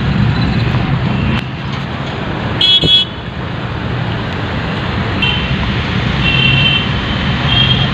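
Road traffic heard from inside a moving car: a steady engine and road hum, with a loud car horn honk about two and a half seconds in and several shorter, fainter honks in the second half.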